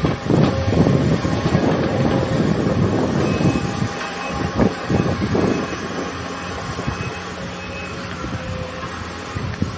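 Wind buffeting the microphone in heavy gusts for the first six seconds, then easing, over a steady distant machinery hum with faint whining tones.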